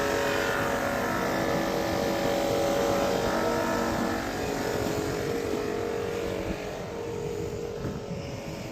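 A vehicle engine idling steadily, growing quieter over the last few seconds.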